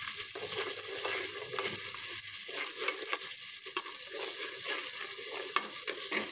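Chopped onions and whole cumin seeds frying in hot oil in a pan, sizzling steadily, while a metal slotted spatula stirs and scrapes them around in short, irregular strokes.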